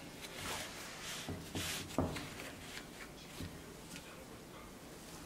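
Cotton furoshiki cloth rustling as it is knotted around a bento box and wooden chopsticks are slid into the knot, with a light knock about two seconds in.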